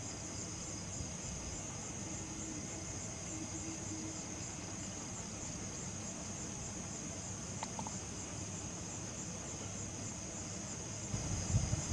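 Crickets chirping in a continuous high trill, with a few low bumps near the end.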